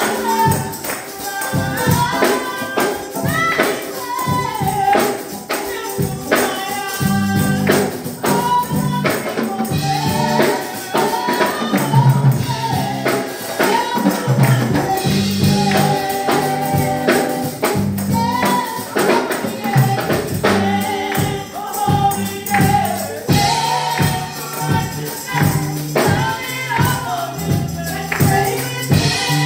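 Live gospel praise music: a tambourine keeps a steady rhythm over a bass line while voices sing.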